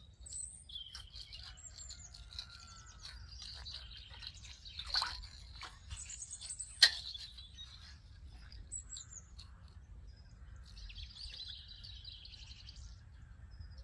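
Small birds chirping and trilling in the background, with a sharp click about seven seconds in.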